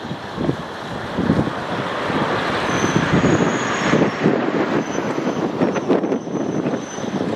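The diesel engine of the KiHa 2004 railcar running, with wind buffeting the microphone. It grows louder about a second in and keeps surging unevenly.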